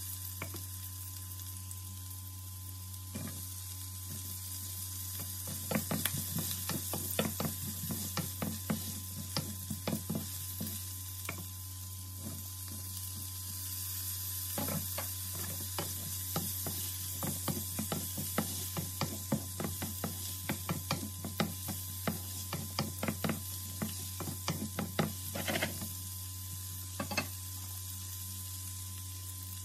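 Vegetables (chopped leek, then diced carrot and green peas) sizzling in oil in a nonstick frying pan. A wooden spatula stirs them in quick spells of clicking and scraping against the pan, over a steady low hum.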